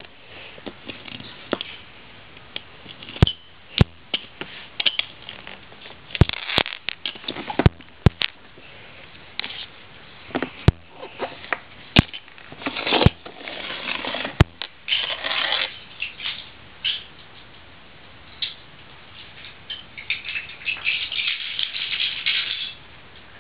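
Small LEGO plastic bricks being handled on a tabletop: irregular sharp clicks and taps, with a few stretches of scratchy rustling.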